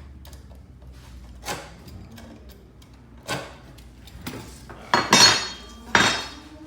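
A metal cutting tool clicking as it is handled, then two louder cutting strokes, about a second apart, as it cuts square through the leather belt strap.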